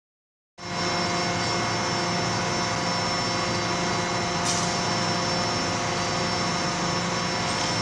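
Steady drone of running forge-shop machinery, the hydraulic plant of a CNC forging hammer, with several held hum tones over an even noise. It starts abruptly about half a second in, and no hammer blows are heard.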